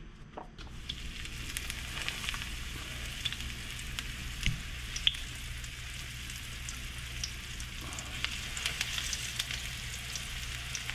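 Breaded snapper fillets sizzling in hot oil in a nonstick frying pan, a steady hiss with scattered pops and crackles that starts about a second in as the fish goes into the pan.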